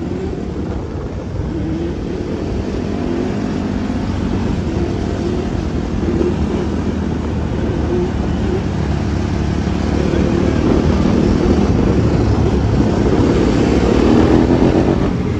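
Off-road engines of a group of quads and a dirt bike running steadily on the move, with the pitch wavering as the throttle changes and the sound growing louder in the second half.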